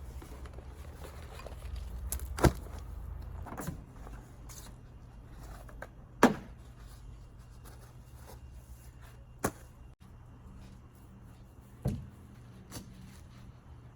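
A handful of sharp knocks and clunks, about five spread through, over a low steady hum.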